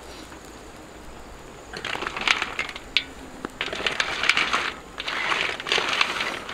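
Snails in their shells being stirred in a large iron wok over the fire: bursts of shells clattering and crackling against each other and the pan, starting about two seconds in and coming in several spells.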